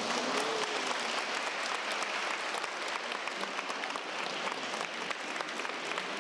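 A crowd of children clapping their hands in steady, continuous applause, many quick claps blending together.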